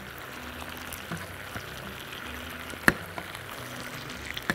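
Pomegranate sauce sizzling and bubbling in a pan of chicken thighs as a metal spoon scoops it up and bastes it over the meat. A few sharp clicks of the spoon against the pan sound over it, the loudest about three seconds in.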